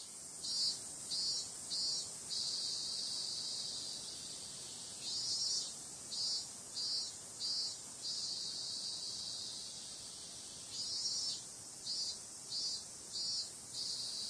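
Cicadas singing: a steady high buzz, with a louder pulsed call of four or five beats that comes back three times, roughly every five seconds.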